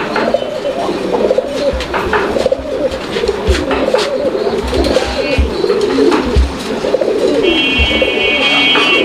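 Domestic pigeons cooing in a loft, several birds overlapping in a continuous low burbling chorus, with a few soft knocks. A brief high steady tone sounds near the end.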